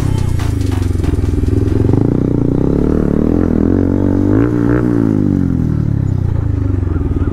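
Bajaj Pulsar's single-cylinder engine through an aftermarket exhaust as the bike is ridden slowly and slows further. The engine note rises to a short rev about four and a half seconds in, then drops back to a low, steady beat.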